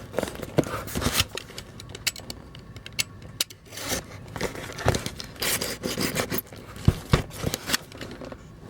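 A package being torn and opened by hand: irregular tearing, crinkling and scraping of tape, cardboard and packing material, with scattered sharp clicks.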